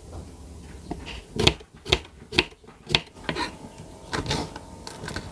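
Kitchen knife chopping on a wooden cutting board: a run of sharp taps about half a second apart, followed by softer, quicker taps.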